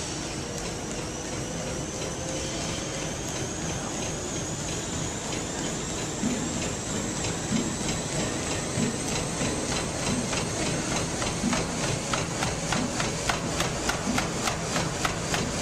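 Treadmill motor whining slowly higher as the belt speeds up to about 15 mph. A sprinter's feet pound the belt at about three steps a second, becoming louder about six seconds in.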